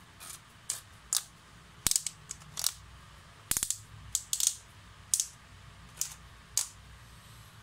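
Sharp mechanical clicks, about a dozen at irregular intervals with a few in quick pairs, from a ZGO 16 V cordless drill being handled and its front parts turned by hand.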